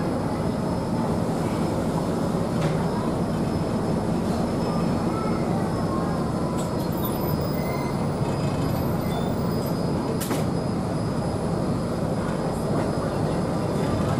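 Ferryboat's diesel engines running under way with a steady, even rumble, mixed with the wash of water and air along the hull. A couple of faint clicks sound about three and ten seconds in.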